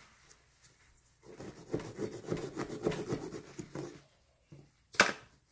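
A carving-kit tool scraping and rubbing against a pumpkin's flesh in uneven strokes, then a single sharp knock about five seconds in.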